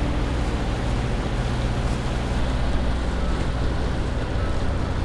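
Steady wind and water noise aboard a catamaran under way on choppy water.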